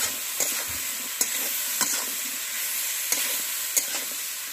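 Vegetables and ground spices sizzling in hot oil in a metal kadai while a metal spatula stirs them, scraping and knocking against the pan at irregular moments over a steady frying hiss. This is the koshano stage, frying the vegetables and spice mix down in the oil.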